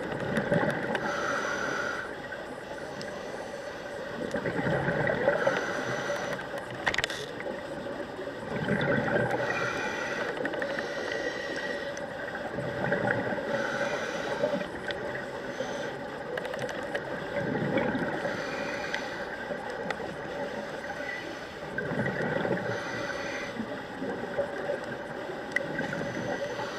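Scuba diver's breathing heard underwater through a camera housing: a rushing surge of exhaled bubbles from the regulator about every four seconds, over a steady faint hum.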